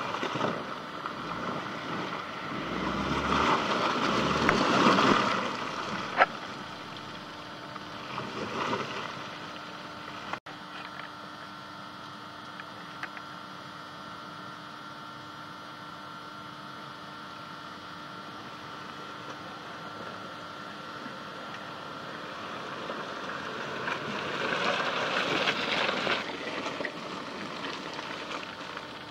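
Subaru Forester XT driving slowly over a muddy, snowy off-road trail: a steady engine hum with tyre and mud noise. The sound swells loudest twice, from about three seconds in and again near the end, with a sharp click about six seconds in.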